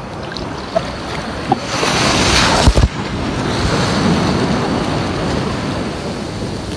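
Sea waves breaking and washing close around the microphone in shallow surf, with wind on the microphone. The rush swells to its loudest about two to three seconds in, with a few sharp knocks as water splashes against the phone.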